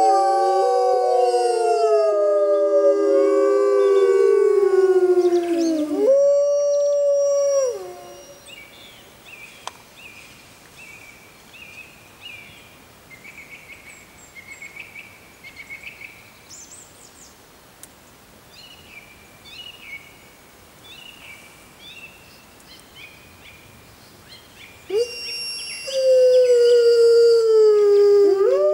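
Arctic wolves howling in chorus, several long overlapping howls sliding down in pitch. The chorus breaks off about eight seconds in, and the howling starts up again near the end.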